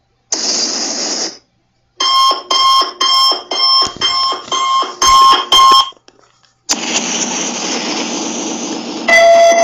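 A short burst of hiss, then an electronic alarm beeping about eight times, roughly two beeps a second. A rushing noise follows, then a steady buzzing alarm tone near the end.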